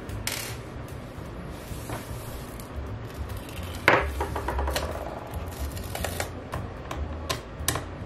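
Small clicks and taps of a precision screwdriver and hand tools against a laptop's bottom case while it is being disassembled, with one louder knock about four seconds in.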